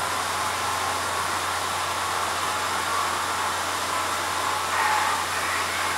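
Steady exhibition-hall ambience: an even, loud wash of noise, swelling slightly about five seconds in.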